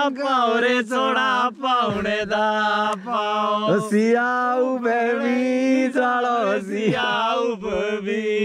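A man's voice singing a slow melody in long held, wavering notes over a steady low drone.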